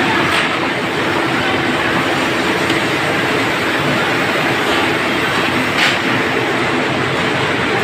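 Reemoon orange grading machine running, its roller conveyors carrying oranges along the lanes with a loud, steady mechanical noise. Two brief sharper knocks stand out, one just after the start and one about six seconds in.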